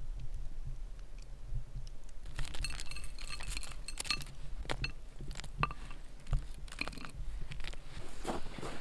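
Glass mason jars and their metal lids clinking, with crackly clicks and rustles of toppings being served onto plates, mostly from about two seconds in, over a low steady rumble.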